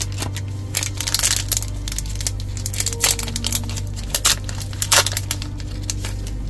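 Foil booster pack wrapper being torn open and crinkled in several short, irregular crackly bursts, over a steady low hum.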